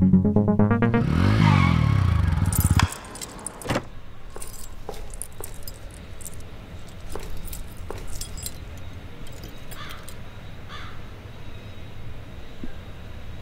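Electronic music ends about three seconds in with a swooping pitch-sweep effect that cuts off abruptly. Then a bunch of keys on a keychain jingles in short, scattered clinks over a low steady background hum.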